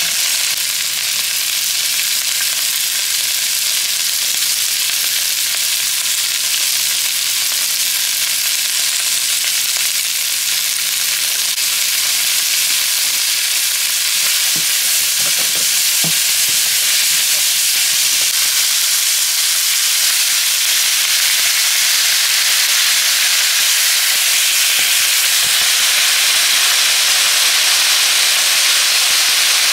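Sliced onions, red bell pepper and mushrooms, later joined by raw beef strips, sizzling in a hot oiled frying pan: a steady hiss, with a few light knocks of the spatula near the middle. The sizzle grows a little louder in the second half.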